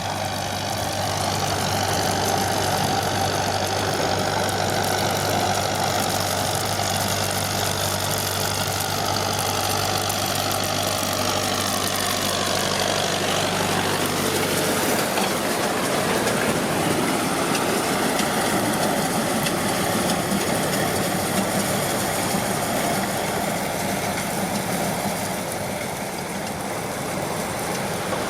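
A John Deere 5720 tractor's diesel engine running steadily while it pulls a round baler through straw. Its low, even hum drops away about halfway through, while the higher mechanical noise carries on.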